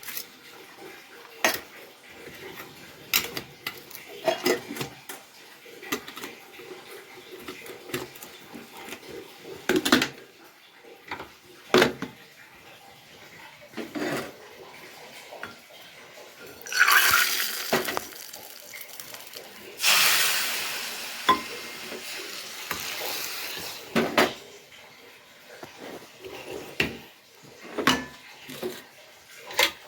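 Steel dishes, pots and utensils clattering and clinking during quick kitchen work, with a tap running briefly twice past the middle.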